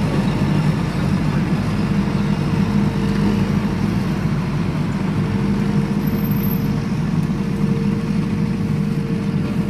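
Diesel engine of a crane truck running steadily while its truck-mounted Palfinger knuckle-boom crane is worked, with a steady higher tone over the low engine drone.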